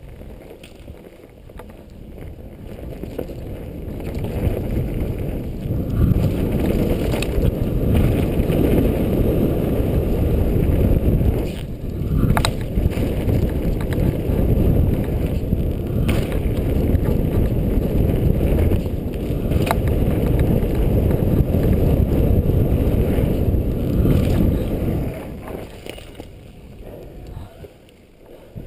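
Wind buffeting a helmet-mounted camera and mountain bike tyres rumbling over a dirt trail at speed. The noise builds a few seconds in and eases off near the end as the bike slows. A handful of sharp clacks come from the bike jolting over bumps.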